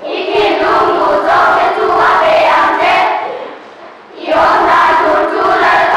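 Children's choir singing together, two sung phrases with a short break for breath about three and a half seconds in.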